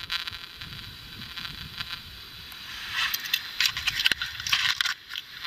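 Recording played back through the small built-in speaker of an Olympus digital voice recorder: steady hiss and crackle, with a busier run of clicks and rustling noises in the second half.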